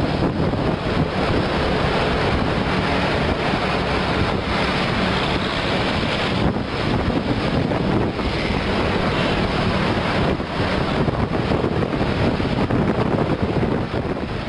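Steady wind rushing over the microphone and road noise from a vehicle driving in traffic.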